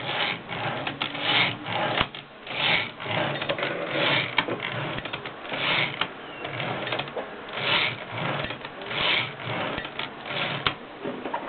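1920s Erika typewriter in use: sharp clicks and short mechanical rattles recur about once a second.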